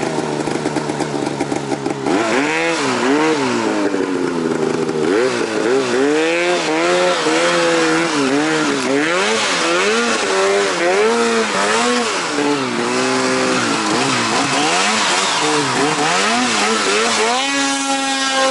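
2020 Arctic Cat Alpha One Hardcore 165 snowmobile's two-stroke twin revving up and falling back again and again, about once a second, with short, hesitant on-and-off throttle. Near the end the engine note rises and holds steady.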